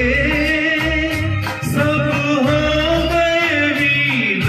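A man singing an old Hindi film song in long, wavering held notes over an instrumental backing with bass and percussion.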